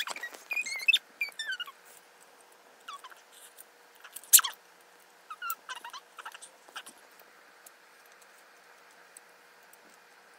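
A child's high-pitched squeaks and screeches, imitating a pterodactyl's calls, in short sliding cries. The loudest comes about four seconds in.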